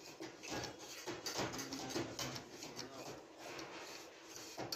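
Faint, irregular light clicks and scraping as a hand tool works a shaft through a cast-iron sewing machine body.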